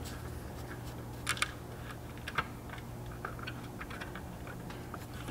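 Light clicks and taps of hardware as bolts are started by hand through the roof-rack fairing into its mounts. There are two close clicks about a second in, a sharper one midway and a few faint ones later, over a steady low hum.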